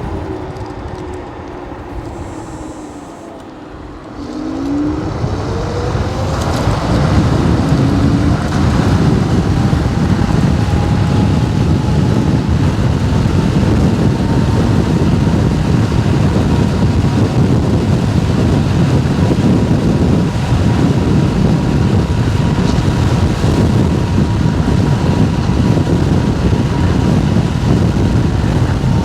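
Wolf King GT electric scooter's motor whining as it slows, then rising in pitch as it speeds up from about four seconds in, and holding a steady whine at speed under loud wind rush.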